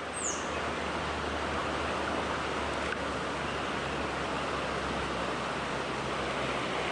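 Steady rush of a flowing stream, with a brief high falling chirp just after the start.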